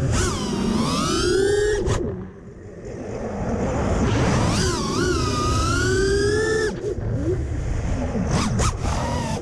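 Five-inch FPV freestyle quadcopter's brushless motors (2207, 2450 kV) whining, the pitch rising and falling with the throttle over a low rush of wind noise. About two seconds in the whine drops away, then climbs back about a second later.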